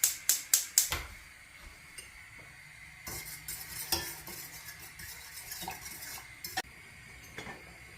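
A fork clinks sharply against a metal saucepan several times in the first second, then softer stirring and scraping through thick barley porridge in the pot as it heats to the boil.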